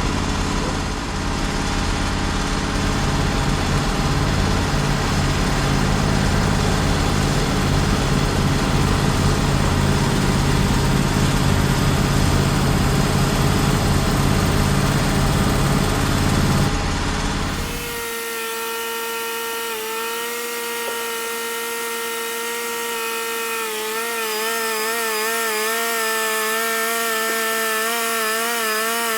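Portable bandsaw sawmill running under load, its engine and blade cutting through a black walnut log. About eighteen seconds in, the deep engine rumble drops out suddenly and a steady, wavering whine carries on.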